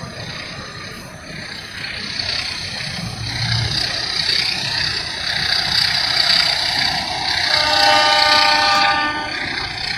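Train passing on the railway, its running noise growing steadily louder, with one horn blast of about a second and a half near the end.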